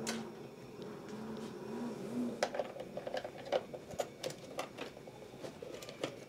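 Handling noise of a soldering-station handle's round cable connector being plugged into the station's front socket: a string of irregular small plastic-and-metal clicks and knocks, with cable rattle, starting a couple of seconds in.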